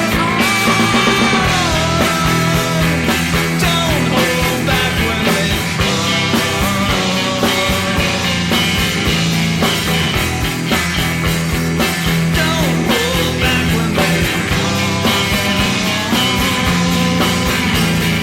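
Rock music with guitar and a steady beat, with a melody line that bends in pitch over it.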